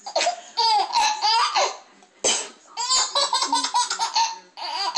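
Babies laughing hysterically in repeated bursts, set off by their mother's fake sneezing.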